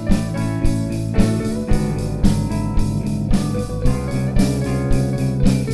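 Live band of drum kit, bass, electric guitar and keyboard playing an instrumental passage with no singing, over a steady drum beat.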